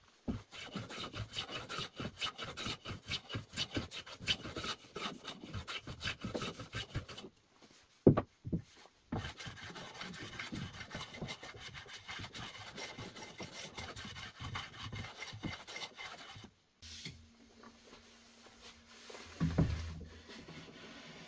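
Hand plane shaving a wooden board in quick repeated strokes, a rasping scrape with each pass. A sharp knock comes about eight seconds in. The planing stops at about sixteen seconds, and a dull thump follows near the end.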